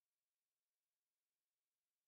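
Near silence: the soundtrack is practically empty.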